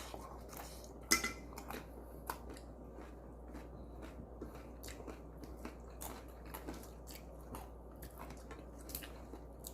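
Close-up chewing of a crisp fried tostada: an irregular run of small crunches, the sharpest about a second in.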